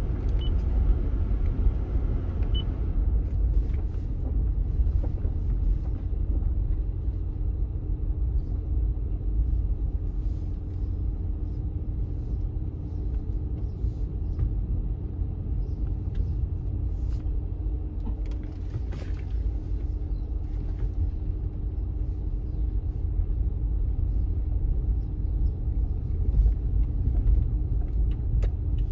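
Low, steady rumble of a car driving slowly, heard from inside the cabin, with a faint steady hum and a few faint clicks scattered through it.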